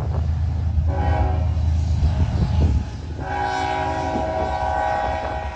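Diesel locomotive air horn sounding two long blasts, each about two seconds, a chord of several steady tones, over a low rumble.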